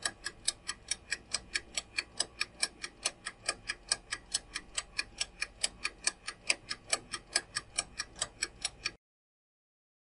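Ticking countdown-timer sound effect, an even clock-like tick about five times a second, stopping about nine seconds in as the time runs out.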